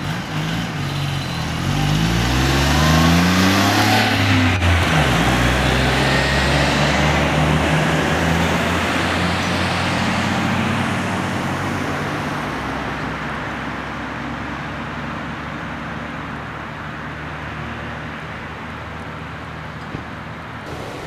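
A motor vehicle's engine accelerating close by, its pitch climbing and then dropping about four seconds in, then running steadily and slowly fading as it moves away.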